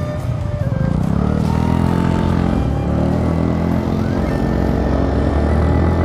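Motor scooter engine running steadily while riding, with wind and road noise.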